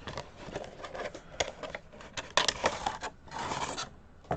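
A tightly sealed booster box being pried and torn open by hand: a run of sharp clicks and scrapes, with a longer tearing sound a little past three seconds in.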